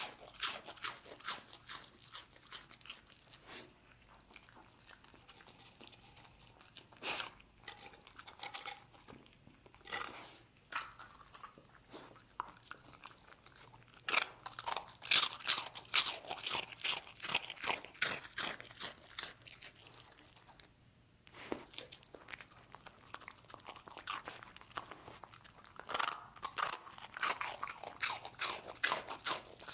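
A dog crunching and chewing dry rusk pieces: runs of rapid, sharp crunches with a few short quieter pauses.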